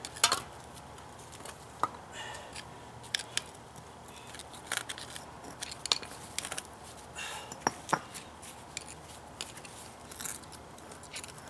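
Concrete brick pavers clicking, knocking and scraping against each other as a sunken paver is pried and worked loose by hand. The irregular sharp clicks come every second or so, with grating scrapes between them.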